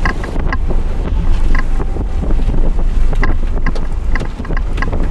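Strong wind buffeting the microphone with a steady deep rumble, and irregular sharp ticks scattered through it.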